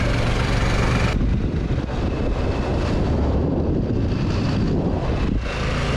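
Motorcycle riding along, with wind rushing over the microphone over the low, steady hum of the Harley-Davidson Pan America's engine. The wind hiss eases about a second in.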